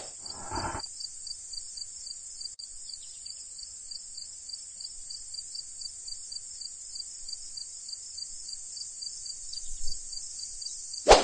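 Crickets chirping steadily in a night-time ambience, an even pulsing trill of about four chirps a second. A short noisy sound comes right at the start.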